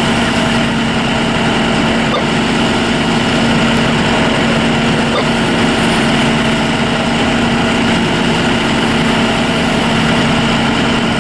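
Fire apparatus diesel engine running steadily: a constant engine drone with a steady hum that does not change in pitch or level.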